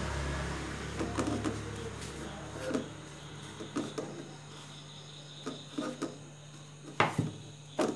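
Hands rolling a crumb-coated egg chop in biscuit crumbs in a steel plate: scattered soft knocks and scrapes against the metal, with two sharper knocks about seven seconds in. A low rumble fades out over the first two seconds.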